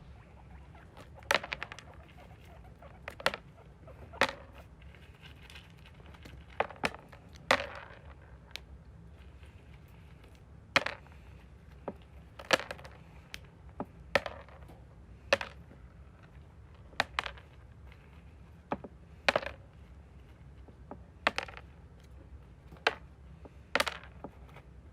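Picking through animal droppings: a series of short, sharp clicks or scrapes, one every second or two, over a low steady background.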